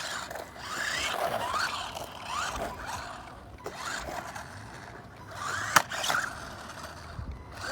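Electric RC car motor whining in several short throttle bursts, each rising in pitch, with one sharp knock about two-thirds of the way through.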